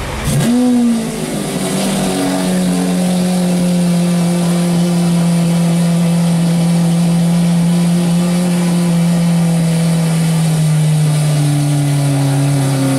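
Lamborghini Aventador's V12 firing up with a sharp rising rev in the first second, then settling into a steady fast idle that drops lower near the end.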